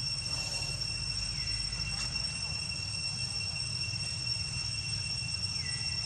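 Steady high-pitched drone of insects in the forest, two unbroken tones, over a low steady rumble; a faint short falling note comes twice, about a second in and near the end.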